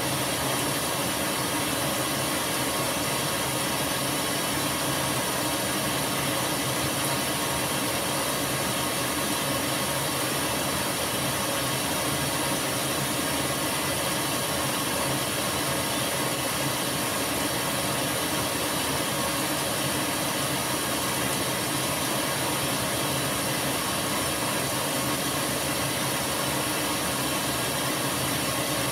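Top-loading washing machine filling its tub with water: a steady rush of incoming water with a constant hum under it, unchanging throughout.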